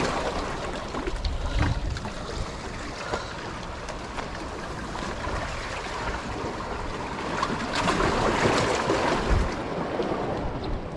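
Surf washing in along the shore, a steady rushing; one wave swells and fades about eight seconds in.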